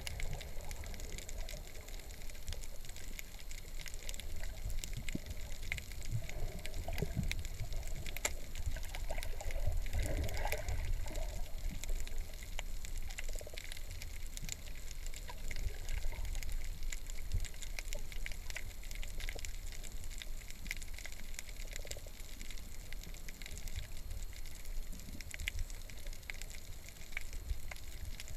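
Underwater ambience recorded through a GoPro's waterproof housing: a muffled, steady low rumble of moving water with scattered faint clicks and crackles, swelling a little about ten seconds in.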